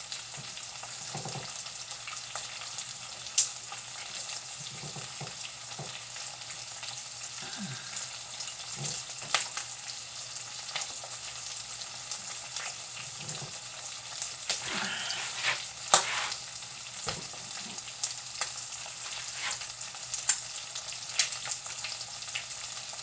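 Corned beef frying in hot grease in a pan: a steady sizzle with scattered sharp pops and crackles of spitting grease, the loudest about three and a half seconds in and again about sixteen seconds in.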